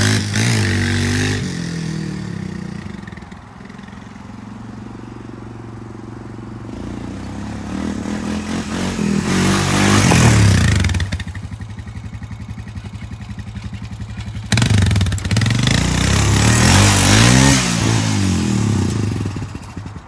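A 2014 Honda Recon ES ATV's engine running on a test ride, its pitch rising and falling as it is revved. It fades as the quad moves off, comes back loud about ten seconds in, drops away, then is loud and close again for the last several seconds.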